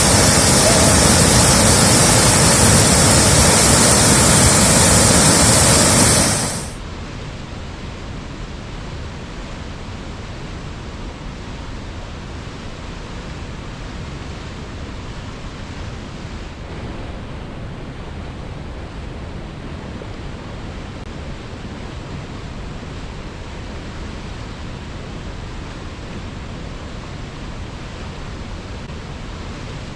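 Waterfall's steady rush of falling water. About six and a half seconds in it drops suddenly to a much quieter, duller rush that stays steady to the end.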